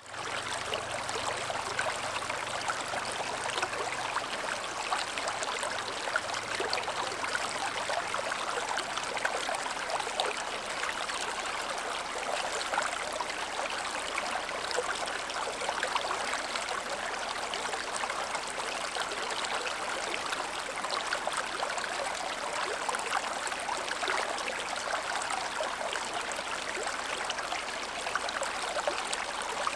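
Stream water flowing steadily, an even rush of running water flecked with small splashes and trickles that never pauses.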